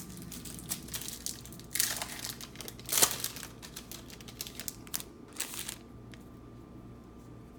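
A stack of trading cards being shuffled and sorted by hand: irregular rustling and sharp clicks of stiff cards sliding against each other, loudest about three seconds in, dying down near the end.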